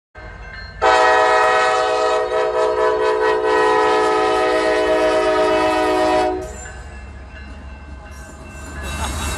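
Steam locomotive 152's whistle blowing one long, steady blast of about five seconds. It is followed by the lower rumble of the passing train, which swells again near the end.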